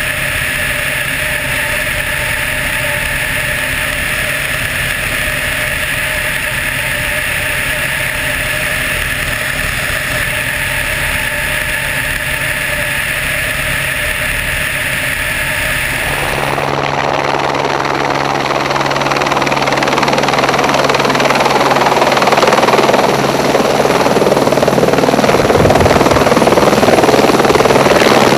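Helicopter turbine and rotor running steadily in flight, heard from on board, with steady whining tones. About halfway through it changes abruptly to a single-engine helicopter heard from outside, idling on the ground with its rotor turning, growing louder toward the end.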